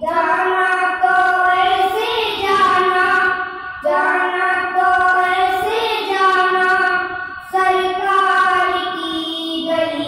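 Boys singing a naat, an Islamic devotional song, into a microphone in long held melodic phrases, with short breaths between phrases about 4 and 7.5 seconds in.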